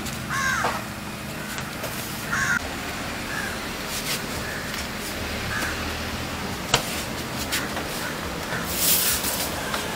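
A bird cawing, two clear calls in the first three seconds and fainter ones after, over a steady low hum. A single sharp knock comes about seven seconds in, and a short hiss near nine seconds.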